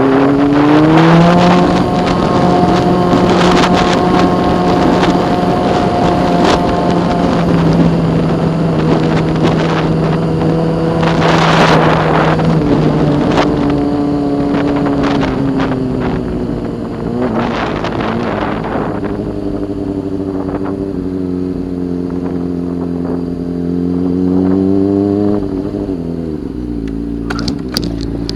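Motorcycle engine running under way, rising in pitch as it accelerates about a second in, then holding a steady note over rushing wind noise. The pitch climbs again and then falls near the end as the bike slows.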